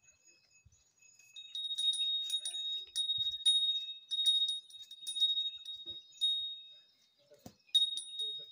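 A small metal bell on a young bullock's neck ringing in irregular clusters of strikes as the animal shifts and moves its head. The ringing starts about a second and a half in and pauses briefly shortly before the end.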